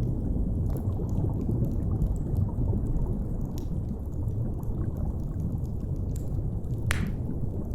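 Deep, steady underwater rumble with a wood fire crackling over it: scattered sharp pops, one louder pop near the end.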